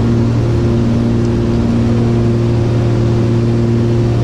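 Steady engine drone of a small aircraft in flight, heard inside the cabin: a loud, even hum with a strong low tone that doesn't change.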